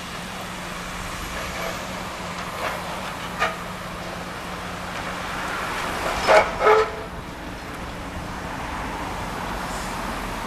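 Steady road traffic noise with a constant low engine hum, and two short, loud, pitched toots in quick succession about six seconds in.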